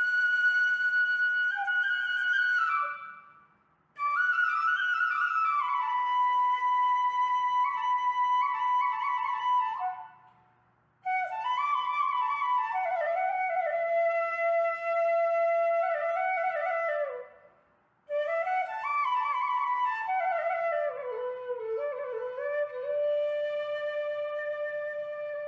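Background music: a solo flute playing slow melodic phrases, with three short pauses between them.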